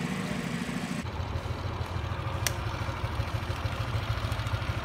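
Yamaha NVX 155 scooter's single-cylinder engine, fitted with an MSD Blaster SS ignition coil, dropping back from a higher speed to idle about a second in, then idling with an uneven, pulsing beat. A sharp click comes partway through.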